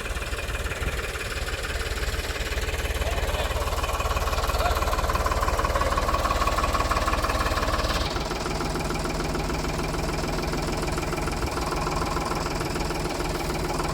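Tractor engine running steadily under load, powering a Preet potato harvester. About eight seconds in, the note shifts and the sound becomes slightly quieter.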